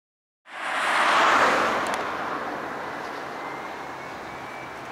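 Airbus A319-111's CFM56 jet engines on final approach, heard from afar as a steady rushing noise with a faint whine. It cuts in abruptly, is loudest about a second in, then settles lower.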